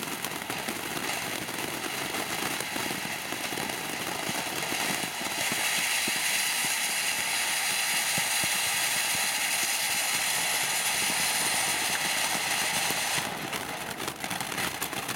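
Boomer Fireworks 'Night Celebration' ground fountain spraying sparks with a steady rushing hiss and fine crackling. It gets louder and brighter about five seconds in and eases off a little near the end.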